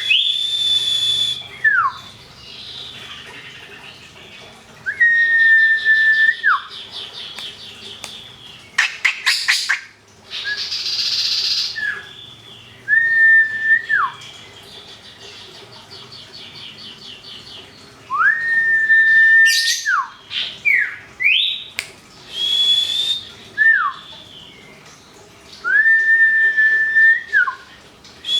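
Birdsong from a white-rumped shama and a common iora: long, level whistles that drop sharply at the end, repeated every few seconds, between runs of fast trilling notes, with a quick series of sharp clicks about nine seconds in.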